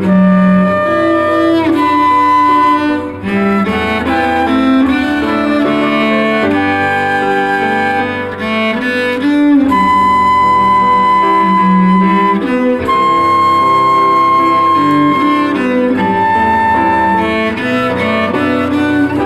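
Live chamber trio of grand piano, cello and flute playing a piece together. The flute holds several long notes in the second half over the cello and piano.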